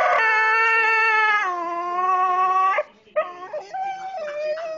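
A beagle howling in one long drawn-out note that dips slightly in pitch partway through and cuts off about three seconds in, followed after a brief pause by shorter, higher whining calls. It is howling in distress at being left at home.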